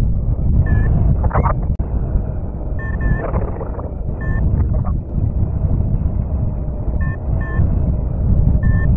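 Wind buffeting the microphone in flight under a paraglider, a steady low rumble, with a variometer beeping short high tones every second or two, in pairs around three and seven seconds in: the vario's climb signal in lift.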